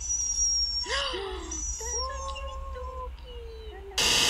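A dog whining in a few drawn-out, wavering cries, starting about a second in. Near the end the cries stop and a loud steady hiss cuts in suddenly.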